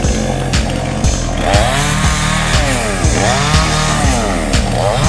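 Chainsaw cutting wood. It comes in about a second and a half in, and its pitch dips and rises repeatedly under load. Under it runs background music with a steady beat.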